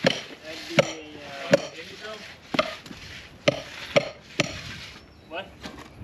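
A run of sharp, loud knocks, roughly one a second and closer together after about three and a half seconds, then fainter knocks near the end, over a steady hiss.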